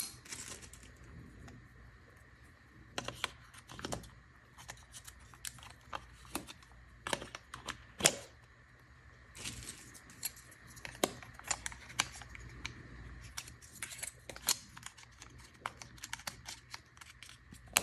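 Light clicks, taps and rustling from handling the plastic case of a Braun BC02XB travel alarm clock while an AA battery is pushed into its battery compartment, with a sharper click about eight seconds in.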